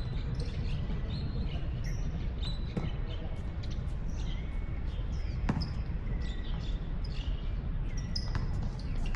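A basketball bouncing on an outdoor court: a few separate thuds a couple of seconds apart. Birds chirp throughout over a low background rumble.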